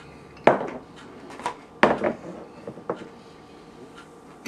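Glass beer bottle set down on a hard tabletop, with a frosted glass beer mug handled alongside it: two loud sharp clunks of glass on the table and a few lighter knocks.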